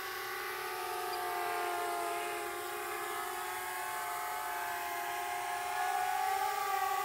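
FPV drone carrying a Mavic 3 on top, its motors and propellers whining steadily in flight, the pitch drifting slowly and rising a little near the end.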